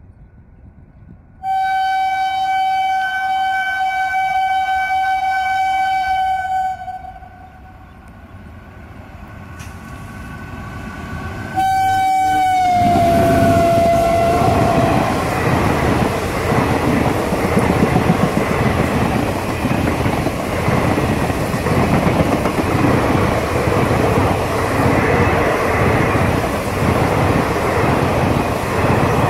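WAP-4 electric locomotive sounding its horn in a long steady blast, then a second blast whose pitch drops as it passes close by. The coaches then run past with a loud, steady rush and clatter of wheels on the rails.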